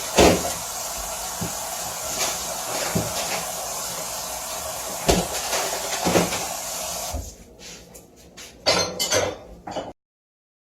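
Pots, pans and dishes clanking every second or so over a steady hiss. After about seven seconds the hiss drops away, a few quieter knocks and clinks follow, and the sound cuts off about ten seconds in.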